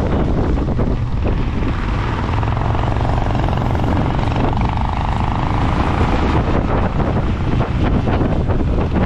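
Motorcycle engine running at riding speed, mixed with wind rushing over the microphone as the bike moves.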